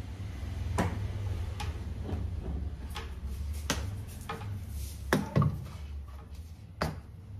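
Kitchen clatter: scattered sharp knocks and clicks from utensils and cupboards being handled, the loudest pair about five seconds in, over a steady low hum.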